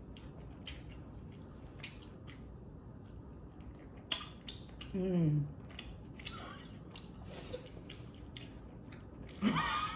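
Close-up chewing of seafood-boil shrimp: scattered soft wet mouth clicks and smacks, with a brief falling "mm" hum about five seconds in.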